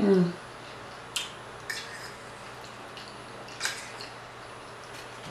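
Close-miked eating sounds: a short low hum at the start, then a few sharp, wet mouth clicks and smacks about a second apart.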